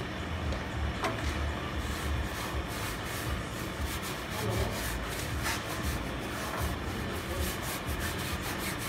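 A cloth rag rubbing over rusted steel sheet in quick, repeated wiping strokes.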